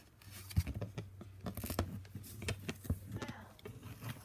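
Handling noise from a smartphone held in the hand: a quick run of scrapes, taps and knocks close to its microphone, over a low hum that fades out about three seconds in.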